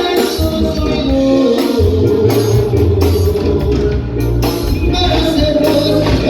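Live Mexican banda music: a brass band playing over a steady tuba bass, with singing.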